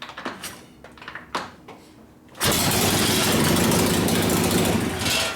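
1972 Harley-Davidson Ironhead Sportster V-twin being started: a few clicks and knocks, then the engine catches about two and a half seconds in and runs loudly for about three seconds before dying near the end, when the choke is taken off.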